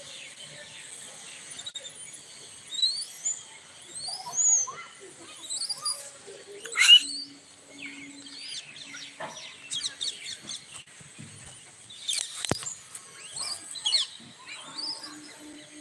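Monkeys squealing: many short, high-pitched rising squeaks in quick succession, the loudest about seven seconds in, with a sharp knock about twelve seconds in.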